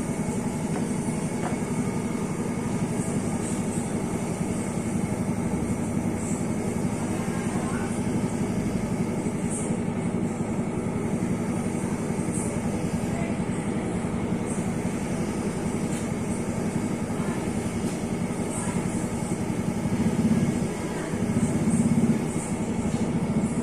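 C6240 engine lathe running under power, spindle and gearbox turning with the automatic carriage feed engaged: a steady, even hum, smooth-sounding.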